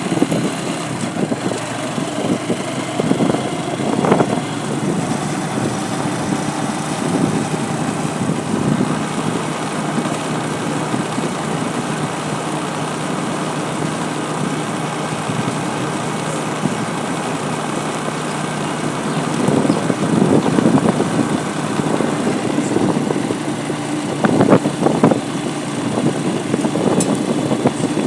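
Motor vehicle engine running steadily, with a few louder knocks or rattles about four seconds in and twice more in the last third.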